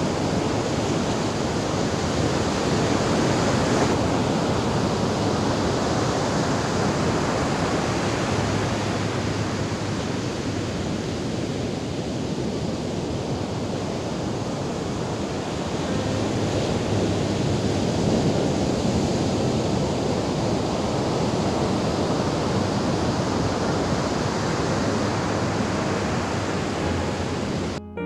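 Ocean surf breaking and washing up a sand beach: a steady rush of waves that swells and eases.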